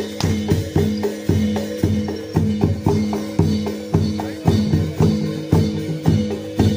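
Reog gamelan accompaniment: drums and pitched bronze gongs struck in a quick, steady beat, with the gong tones ringing on between strokes.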